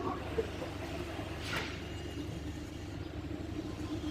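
A steady low mechanical drone, like a running engine or machine, with one brief sharp knock about one and a half seconds in.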